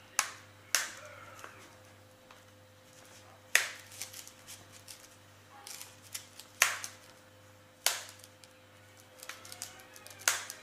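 Plastic clips of a Google Nexus 10 tablet's back casing snapping into place as it is pressed shut along its edges: about six sharp clicks at irregular intervals, with small handling rustles between them.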